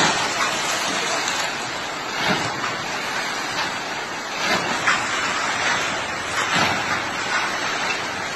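Muddy, swollen flood river rushing: a steady, loud rush of water that swells louder briefly a few times.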